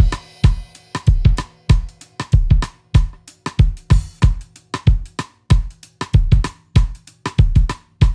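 Background music with a steady drum-kit beat of kick drum, snare and hi-hat, about two beats a second.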